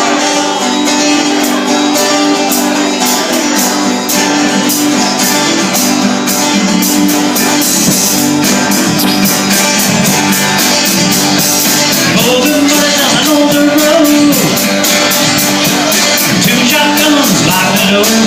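Band playing the instrumental intro of a rock song: guitar over a steady drum beat with a quick hi-hat.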